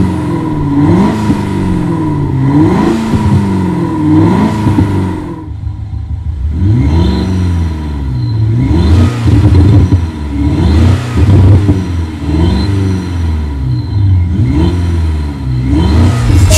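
THOR electronic exhaust speaker playing a simulated sports-car engine sound, revved in a string of quick blips about once a second. There is a short lull about five seconds in, then more revving with a deeper rumble.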